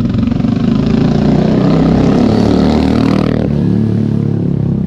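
Royal Enfield Bullet 350's single-cylinder engine through an aftermarket SC Project exhaust, accelerating hard and riding away with a loud exhaust note; the note changes abruptly about three and a half seconds in.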